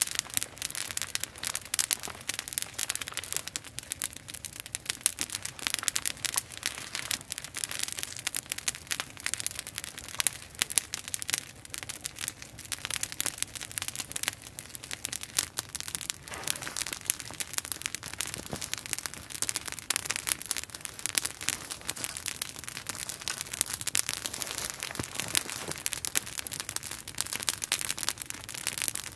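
Open wood campfire crackling steadily, a dense run of small snaps with a few louder pops scattered through.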